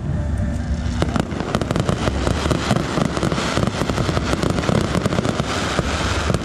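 Fireworks going off: from about a second in, a dense, continuous crackling of many rapid small bangs.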